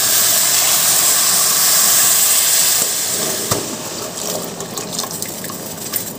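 Water pouring in a steady stream onto dry sugar in a metal kadai, splashing and filling the pan as water is added to make sugar syrup. The pour is loudest for about the first three seconds, then quietens to lighter splashing with a few small ticks.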